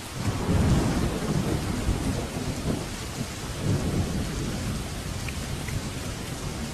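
Steady rain with a rolling rumble of thunder that breaks in at the start, swells about a second in, and rolls on in waves for a few seconds before easing back into the rain.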